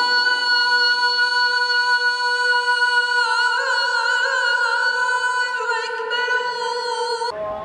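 A man's voice chanting in a mosque, as in the Friday prayer's call or recitation: one long, high held note that wavers into an ornamented run in the middle, then breaks off suddenly just before the end.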